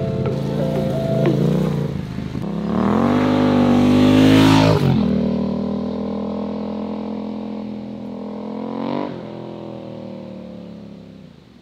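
Yamaha Ténéré 700's parallel-twin engine accelerating hard, rising in pitch, then falling sharply about five seconds in as the bike rides off, with one more brief rise near nine seconds before it fades into the distance.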